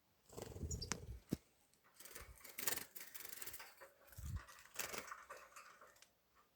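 Close rustling and handling noise in irregular bursts, with sharp clicks and a couple of low thumps.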